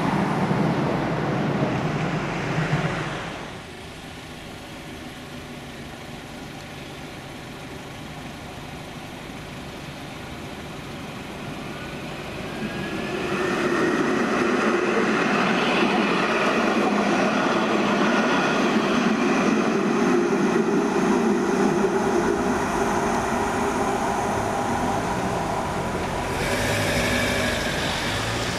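Alstom Citadis 402 trams running on their rails amid road traffic. About twelve seconds in, a rising electric whine and louder rolling noise as a tram gathers speed and passes; this stays loud for most of the rest.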